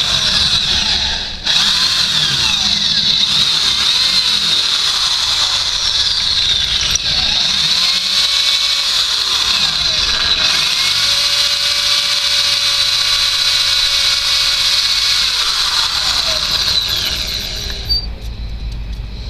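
Electric drill boring into a broken, rusted steel stud, running with a high-pitched whine as the bit cuts the metal. It pauses briefly about a second and a half in, then runs steadily and stops near the end.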